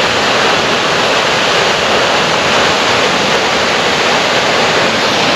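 Aira Force waterfall: a steady, loud, even rush of water pouring down the falls, described as quite powerful.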